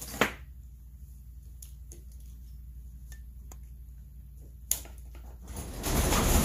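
Scattered sharp clicks and small taps from pliers and a screwdriver working at a Homelite chainsaw's fuel-line fittings, over a steady low hum. About five and a half seconds in, a louder rustling noise sets in.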